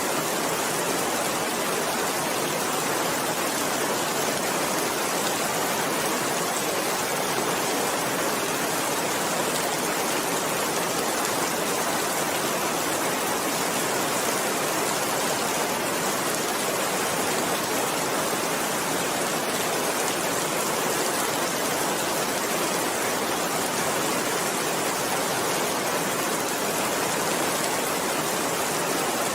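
Steady rain falling, an even hiss with no changes or distinct drops.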